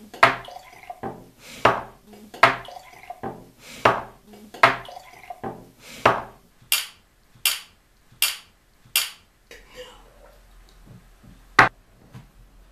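Glass tumblers being knocked and set down on a tabletop: a run of about a dozen sharp knocks and clinks, roughly one a second, the later ones thinner and higher, with a last knock near the end.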